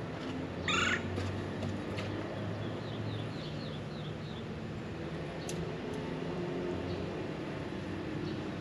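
A bird chirping: one short call about a second in, then a quick run of about eight short falling chirps, over a steady low hum. Two faint clicks come about halfway through.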